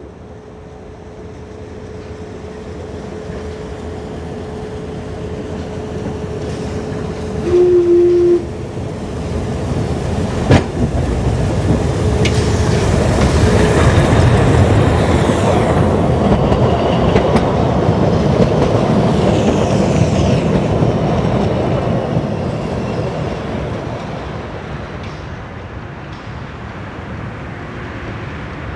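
Narrow-gauge steam train approaching and rolling past close by, growing louder to a peak about halfway through and then fading away. The locomotive's whistle gives one short blast about eight seconds in.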